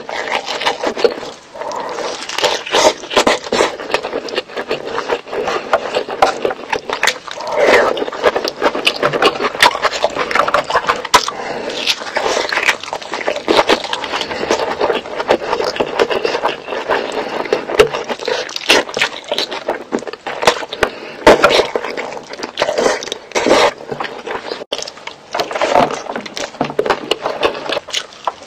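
Close-miked eating sounds: wet chewing and lip smacking as rice and chicken curry are eaten by hand, a dense, irregular run of small smacks and clicks.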